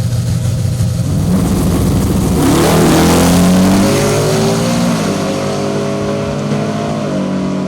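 Race truck engine accelerating hard down the drag strip: its pitch rises from about a second in, it is loudest around three seconds in, then the pitch falls and steps down as it goes past and away.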